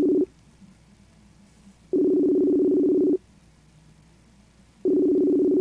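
Ringback tone of an outgoing phone call that is ringing unanswered: a low, steady two-pitch buzz-tone, about a second and a quarter long, repeating every three seconds or so. One ring ends just in, a full ring comes about two seconds in, and another begins near the end.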